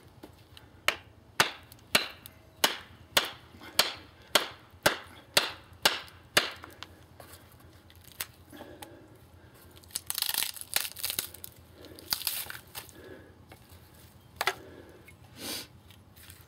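About a dozen sharp wooden knocks, about two a second, as a TOPS Fieldcraft knife is batoned down into a piece of juniper on a chopping block. Then a few seconds of crackling as the wood splits apart, and two more single knocks near the end.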